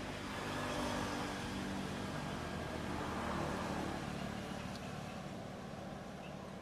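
A motor vehicle's engine passing by, swelling in at the start and fading away over the last couple of seconds.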